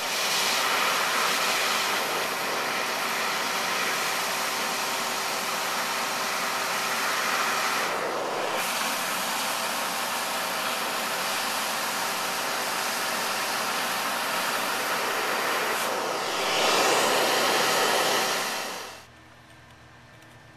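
High-voltage arc from a pole transformer sizzling through a bucket of moist sand, fusing it into glass fulgurites. It is a steady, loud hiss with a faint hum under it, louder for a couple of seconds near the end, then cutting off suddenly.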